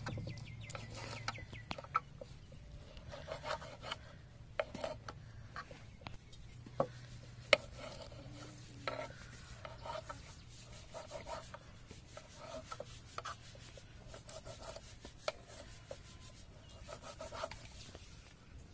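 Knife cutting boiled conch meat on a wooden cutting board: irregular knocks of the blade on the wood, with rubbing and scraping between them and one sharper knock a little before halfway.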